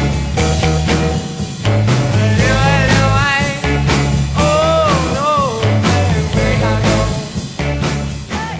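Rock music with a steady bass line and notes that bend in pitch in the middle, fading near the end.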